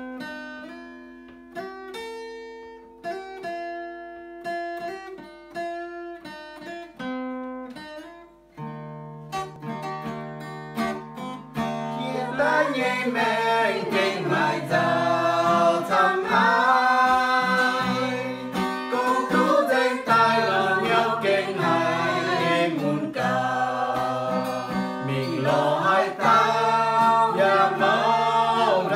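Acoustic guitar played alone as an introduction, single picked notes at first and fuller chords from about eight seconds in. About twelve seconds in, a small group of men and women starts singing along with it and the music gets louder.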